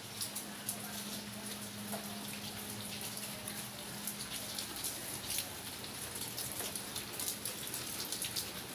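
Light rain falling, many small drops pattering and dripping on hard surfaces.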